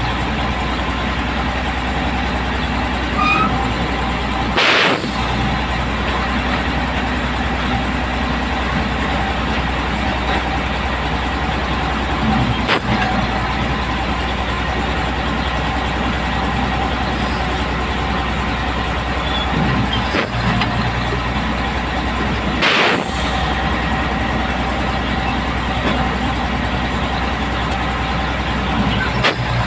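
Pile-driving hammer blows ringing out as heavy single strikes, about five of them spaced several seconds apart, over a steady low engine drone.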